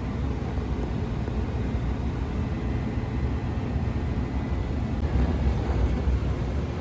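Old American Standard gas furnace running, a steady low rumble of the firing unit with a faint steady high whine over it.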